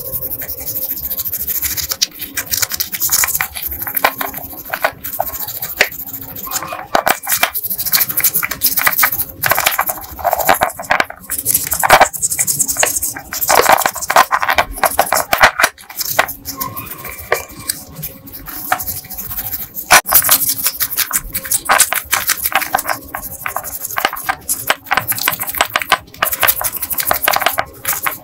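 Hand brush scrubbing rust off steel Colt M1911 pistol parts: rapid, uneven back-and-forth scraping strokes with no steady rhythm.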